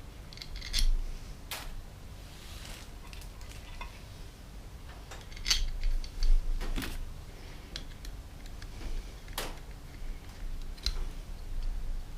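Light metallic clicks and clinks of small powervalve parts and hand tools being handled during reassembly of a two-stroke cylinder. There are a handful of separate sharp ticks, a second or more apart, with the loudest cluster near the middle.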